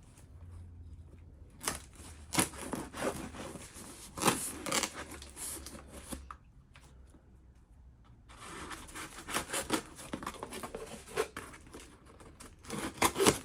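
A cardboard box being opened by hand: irregular tearing, scraping and rustling of cardboard and packing, with a lull of about two seconds midway.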